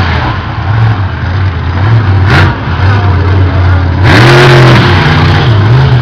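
Monster truck engine revving loudly on the track, its note wavering up and down, with a hard rev about four seconds in that rises in pitch and falls back.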